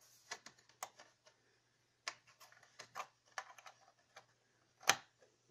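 Faint, irregular clicks and taps of a finger working the buttons on a Casio MZ-X keyboard's panel, about a dozen in all, the loudest a little before the end, over a faint low hum.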